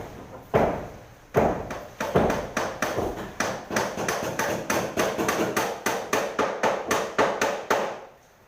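Hammering: a run of sharp blows, a few spaced apart at first, then quicker at about four a second, stopping just before the end.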